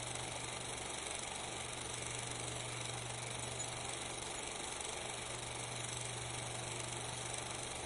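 Steady hiss with a low hum underneath and no distinct events: the background noise of an otherwise silent film soundtrack.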